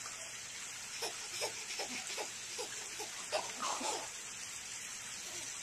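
Baby giggling in a run of short bursts of laughter from about one second in to about four seconds in, over a steady background hiss.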